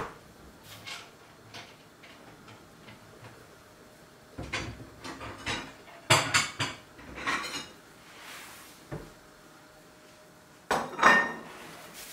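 Kitchen clatter of metal and dishes: scattered knocks, then a run of clanks and rattles in the middle as a gas cooker's oven door is pulled open, and another loud clatter near the end.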